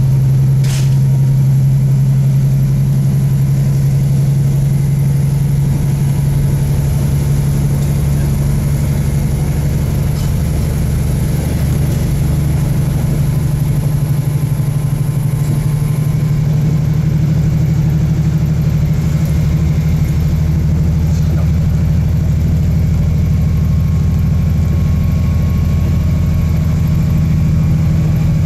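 Diesel engine of a KiHa 48 railcar heard from inside the passenger cabin: a steady low drone that rises slightly in pitch about halfway through.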